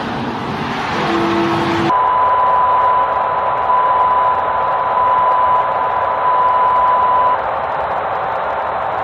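Noisy broadcast audio cuts off abruptly about two seconds in. It gives way to a duller static hiss carrying a single steady test tone, the kind sent when a broadcast has lost its programme. The tone stops about a second and a half before the end while the hiss goes on.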